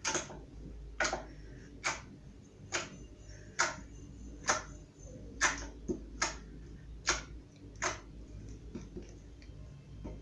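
A series of sharp clicks, about ten of them at a fairly even pace of a little over one a second, stopping a couple of seconds before the end.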